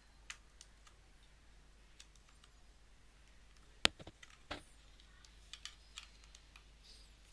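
Scattered small clicks and ticks from the plastic casing of a mini pouch sealer being pried apart at its snap-fit joints. The sharpest click comes about four seconds in, with another half a second later.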